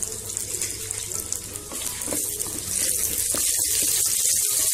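Curry leaves sizzling in hot groundnut oil in a clay pot, a steady hiss that grows louder about three seconds in.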